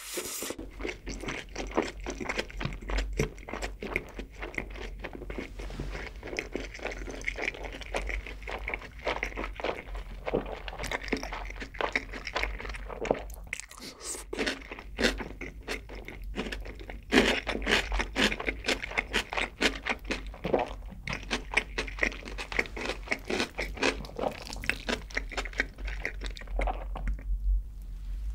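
A person chewing mouthfuls of food close to the microphone: continuous wet chewing and smacking with many small crunchy clicks. It quiets briefly near the end.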